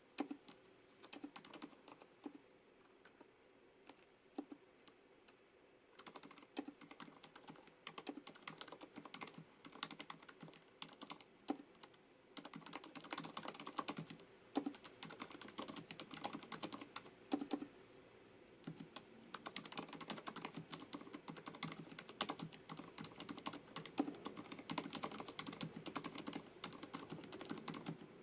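Typing on a FILCO Majestouch MINILA-R Convertible compact mechanical keyboard with Cherry MX Silent switches. The keystrokes come sparsely with a short pause at first, then pick up into fast, steady typing from a little under halfway through.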